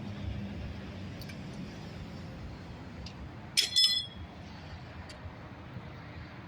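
Two quick metallic clinks about a quarter second apart, a little over halfway in, each with a brief ringing tail. They sound like steel hand tools or parts knocking together, heard over a steady low rumble.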